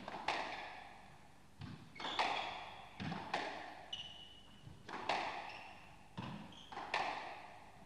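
Squash rally in a reverberant court: the ball struck by rackets and hitting the walls, a sharp hit about every second, each ringing on briefly. Short high squeaks of shoes on the court floor come between the hits.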